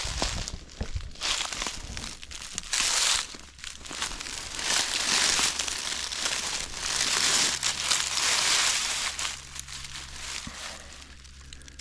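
Footsteps crunching and rustling through dry leaves on the forest floor, in uneven swells as someone walks slowly.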